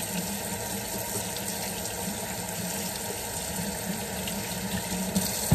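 Kitchen faucet running steadily into the sink, the stream splashing over chicken drumsticks being rinsed by hand.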